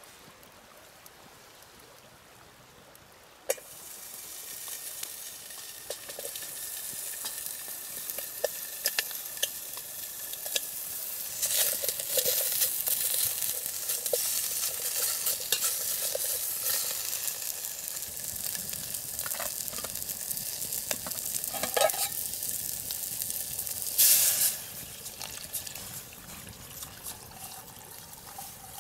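Food frying in a pan over a campfire: a sharp clack a few seconds in, then a steady sizzle that grows louder, with scattered ticks and pops, a brief loud flare-up near the end before it eases.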